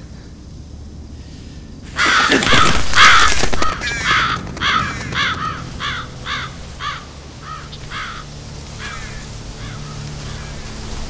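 Crows cawing: a sudden loud burst of overlapping calls about two seconds in, then a run of single caws, about two a second, that fade away.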